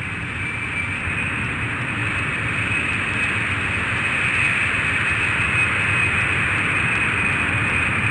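Boeing jet airliner's engines running: a steady roar with a high turbine whine, slowly growing louder, cutting off suddenly near the end.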